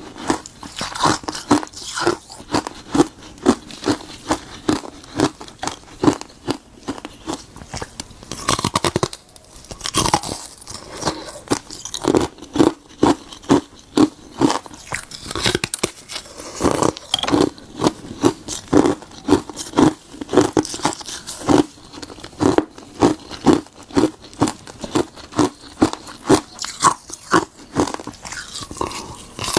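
Frozen tartary buckwheat tea ice being bitten and chewed: a quick run of loud, crisp crunches and cracks, about two to three a second, with a brief lull about nine seconds in.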